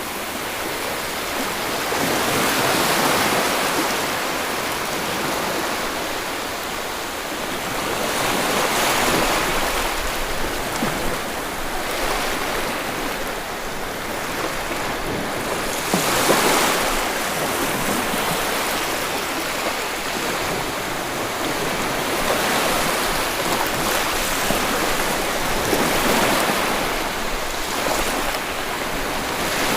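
Sea waves washing in and out on the shore, the noise swelling and ebbing every few seconds.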